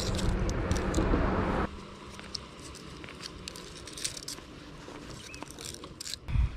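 Soft clicks, crinkles and rustles of hands handling and tying plastic-bottle cordage fishing line. A steady rushing noise cuts off abruptly about a second and a half in, and there is a low thump near the end.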